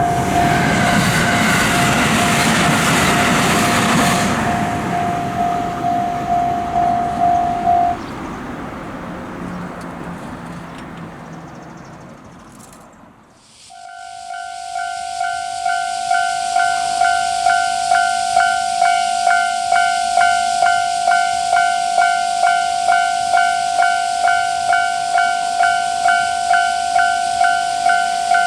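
Japanese level-crossing electronic warning bell ringing its repeated "kan-kan" at about two strikes a second while a train passes with a rush of noise in the first few seconds. The bell stops about eight seconds in. About halfway through, another crossing's bell, two-toned, starts up and keeps ringing at the same pace.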